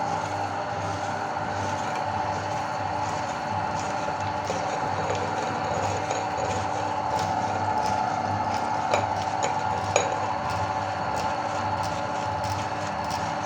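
Meat grinder running steadily as it grinds soap, a constant mechanical hum with light ticks and two sharper clicks about two-thirds of the way through.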